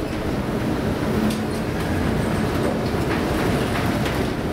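Steady heavy rumble of a ship working through storm seas, with faint scattered rattles and knocks.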